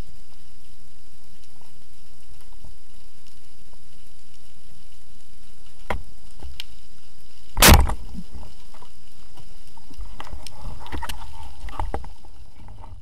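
Underwater ambience picked up through an action camera's waterproof housing: a steady muffled hiss with a faint high whine. A single sharp knock a little past halfway, with a few smaller clicks around it, before the sound fades out at the end.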